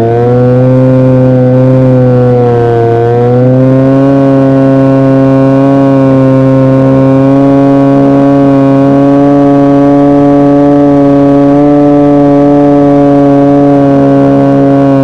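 Electric motor and propeller of a fixed-wing RC glider drone, heard from the aircraft's onboard camera as a loud, steady whine. Its pitch dips briefly about three seconds in as the throttle eases, then holds level in cruise.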